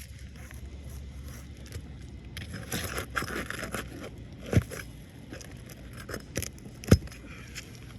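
Asphalt roof shingles being pried and scraped with a roofing tool: a stretch of scraping and crackling about three seconds in, then a few sharp knocks, the loudest near the end.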